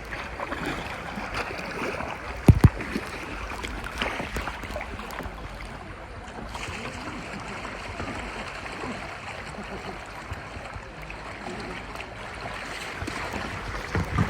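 River water rushing steadily around a kayak, with a couple of sharp knocks about two and a half seconds in and a few smaller ones later.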